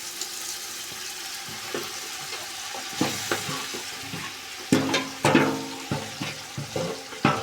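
Masala sizzling in a hot karahi, a steady hiss, with the meat going in and being stirred from about three seconds in: a string of sharp clanks of the ladle against the metal pan, some of them ringing briefly.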